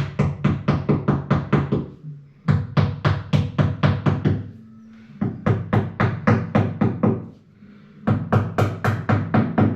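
Hammer tapping 6 mm Fisher nylon wall plugs into drilled holes: quick, even taps about five a second, in four runs with short pauses between.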